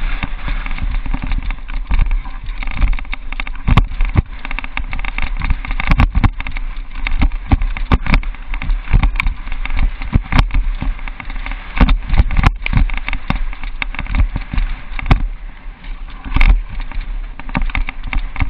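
Downhill mountain bike riding over a bumpy dirt trail, heard from a camera mounted on its handlebar: a steady rumble with frequent sharp knocks and rattles as the bike hits bumps.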